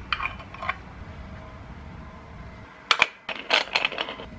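Aluminium moka pot being assembled by hand: a few light metal clinks as the coffee basket is set into the base, then, about three seconds in, a run of clicks and scrapes as the top chamber is screwed onto the base.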